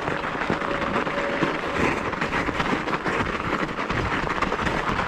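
Bicycle tyres crunching and rolling over crusty snow, with a dense run of irregular crackles and clicks as the bike jolts over the rough surface.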